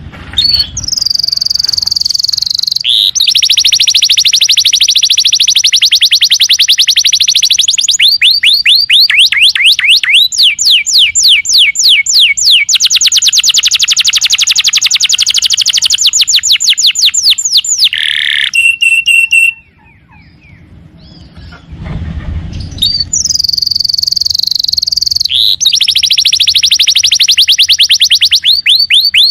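Domestic canary singing in full voice: long, fast rolling trills in phrases of changing speed, with a short break about two-thirds of the way through before the trilling resumes.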